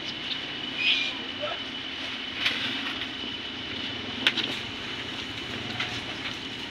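A few sharp taps and rustles of a hand and a kitten moving on a plastic table cover, the loudest about four seconds in, over a steady background rumble and a faint steady high whine.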